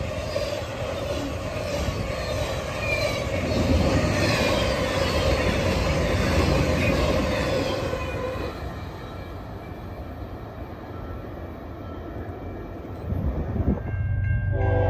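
Intermodal freight train rolling past: a steady rumble of wheels on rail with high wheel squeals, easing after about eight seconds. Near the end a train horn starts sounding a steady chord.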